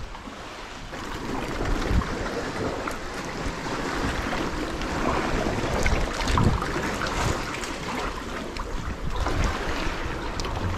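Sea kayak being paddled: the paddle blades dip and splash, and water washes along the hull, with gusts of wind rumbling on the microphone now and then.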